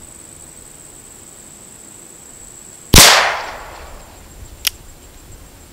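A single shot from a Pietta Colt-pattern .44 cap-and-ball black powder revolver loaded with a light 15-grain charge, about three seconds in. It makes a sharp report that rings away over about a second. A small click follows a second and a half later.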